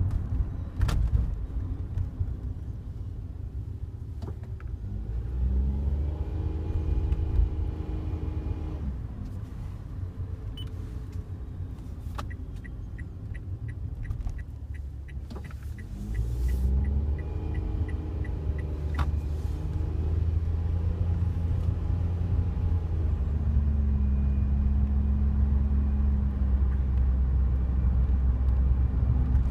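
Inside the cabin of a moving Daihatsu Wake: road rumble, with the engine speeding up and settling twice. Scattered sharp clicks and a short run of fast, even ticking about halfway through sound over it, the kind of dashboard rattle that the owner traces to the passenger side and that gets louder with vibration.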